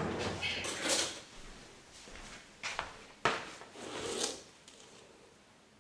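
Metal spoon scraping and clinking in a glass jar of sugar as a tablespoon is scooped out: a scrape at first, then a few sharp clicks and knocks.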